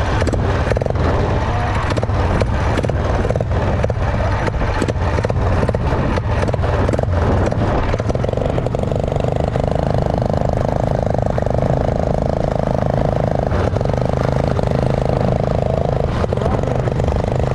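A motorized bicycle's 212 cc single-cylinder four-stroke gas engine running steadily while riding, with wind buffeting the microphone. About halfway through, a steadier mid-pitched tone joins the engine sound and holds.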